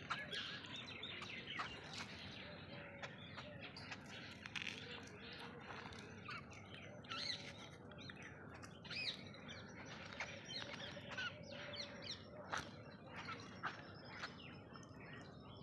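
Small birds chirping: a busy stream of short, high chirps, one after another.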